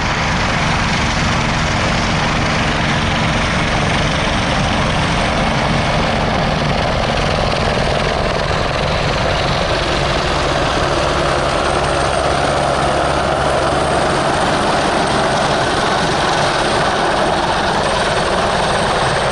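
Airbus H125 (AS350 B3e) single-engine helicopter approaching and coming down to a low hover: steady rotor beating with a rushing turbine noise that grows stronger in the second half as it draws near.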